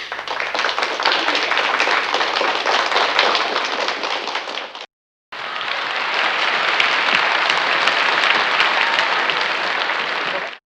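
Audience applause: many hands clapping in a dense wash. It cuts off sharply after nearly five seconds, starts again half a second later, and runs about five more seconds before stopping abruptly.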